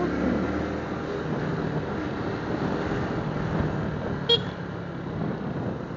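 Suzuki Smash 115's single-cylinder four-stroke engine running steadily on the move, with a short horn toot about four seconds in.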